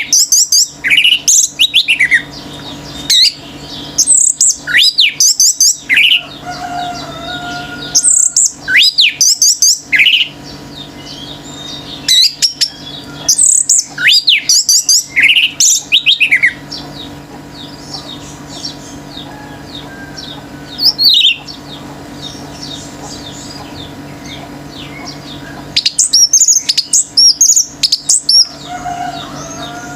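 Orange-headed thrush (anis merah) singing a loud, rapid, varied song of high sweeping notes in repeated bursts, falling quiet for several seconds past the middle apart from one short phrase, then starting again near the end. Fainter chirps of other birds sound behind it.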